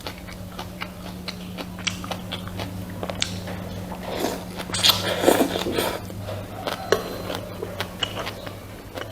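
Close-miked eating of rice with pork soup: biting and chewing with many small mouth clicks. The sounds are loudest and busiest around the middle, over a steady low hum.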